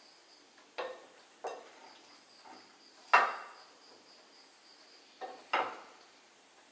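Serving utensils knocking and clinking against ceramic bowls and plates as food is dished out: about five short, sharp clinks, the loudest about three seconds in and two close together near the end.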